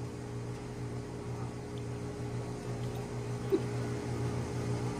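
Steady low mechanical hum of a running machine, with one faint short sound about three and a half seconds in.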